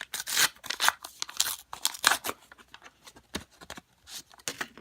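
Trading cards and their pack wrapper being handled: a quick run of rustling, sliding and crinkling noises, densest in the first two and a half seconds and thinning out after.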